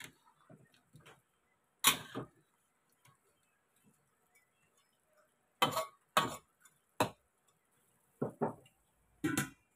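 Metal spatula knocking and scraping against a steel wok while stirring: about half a dozen separate clacks with quiet gaps between. Near the end, the wok's metal lid clanks as it is set on.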